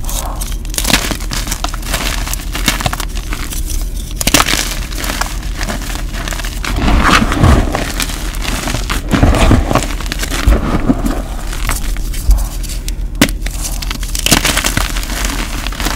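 Blocks of gym chalk being snapped and crushed by hand: dry crunching and crackling in an uneven run of crunches as the blocks break and crumble into powder.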